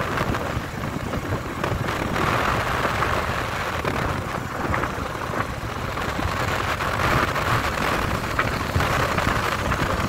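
A vehicle travelling along a road: steady engine and road noise with wind rumbling on the microphone.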